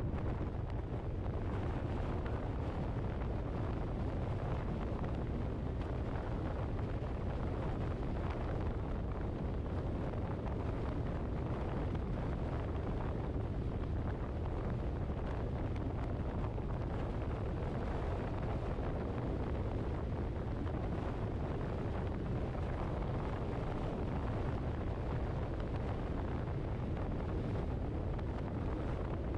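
Steady low rumble of a car on the move, with wind noise on the microphone and no change in pace.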